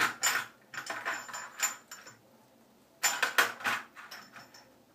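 Small metal parts of a three-piece safety razor clinking and rattling as they are handled, in two spells of light jingling, the second starting about three seconds in.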